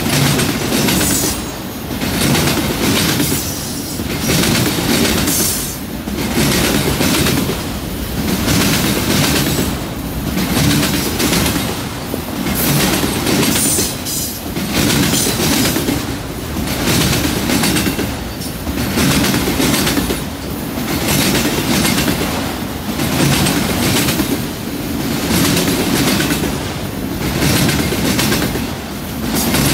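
Freight train of autorack cars rolling past close by: a continuous rumble and clatter of steel wheels on the rails, rising and dipping about every two seconds.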